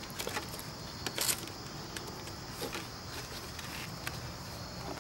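Light clicks and rattles of a stubborn quick-release wiring connector and its cables being worked by hand inside an opened electric-motorcycle battery case, the sharpest click a little over a second in, over a faint steady high hiss.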